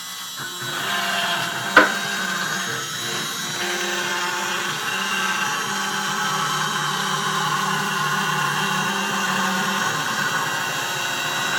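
Yoocnc 3040 desktop CNC router's spindle and end mill cutting red acrylic sheet: a steady machine whine and cutting noise that comes up about half a second in, with one sharp click about two seconds in.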